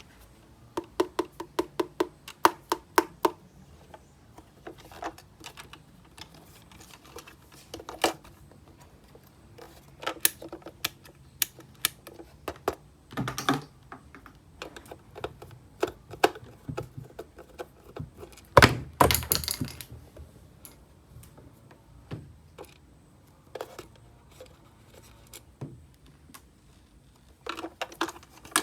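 Hands handling a plastic toy bus and its packaging: irregular clicks, taps and knocks, a quick run of clicks near the start, and two longer scraping rustles, about 13 and 19 seconds in.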